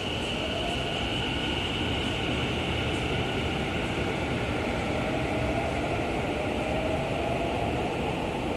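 Tobu 50050-series electric train pulling out of an underground station platform: a steady rumble of wheels and running gear, with a motor whine rising slowly in pitch as the train accelerates.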